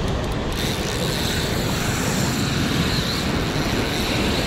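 Steady rushing noise of wind on the microphone and surf on the shore, even in level throughout.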